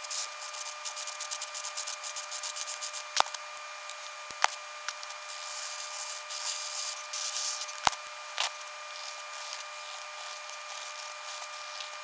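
Mechanical pencil scratching across grid paper in quick, dense strokes, with a few sharp ticks and a faint steady whine underneath.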